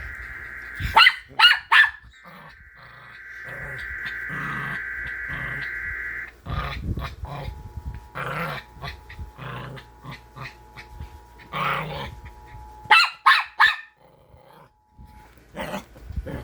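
A dog barking: a quick run of three sharp barks about a second in, and another loud run around 13 seconds. Under it an Emergency Alert System broadcast plays: a steady two-pitch data burst that stops about 6 seconds in, then the two-tone attention signal held for about eight seconds.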